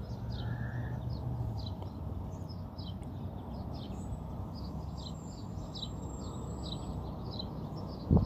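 A bird chirping over and over, short high calls about two a second, over a steady low outdoor rumble; a couple of sharp knocks near the end.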